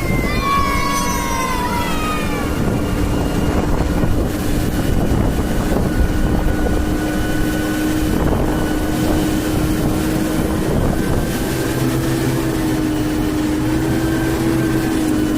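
Mobile crane's diesel engine running loudly and steadily, with a steady hum. Over the first two seconds a high-pitched whine falls in pitch.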